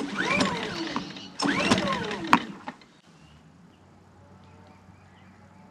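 Recoil starter of a Yamaha 2 kVA inverter generator pulled twice, the engine whirring up in pitch and winding down each time without firing, with a sharp click at the end of the second pull. It won't catch because the engine switch is still off.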